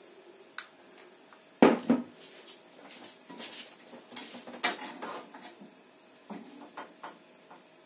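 Kitchen clatter of a frying pan and metal utensils: a string of separate knocks and clanks, the loudest a sharp clank about one and a half seconds in, with more scattered through the middle and near the end.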